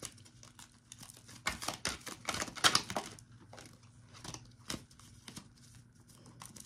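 Tarot cards being handled and laid out: a string of short, irregular papery rustles, flicks and taps, the loudest a little over two and a half seconds in.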